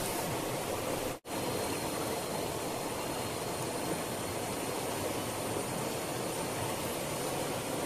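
Steady rushing noise that cuts out for a moment about a second in.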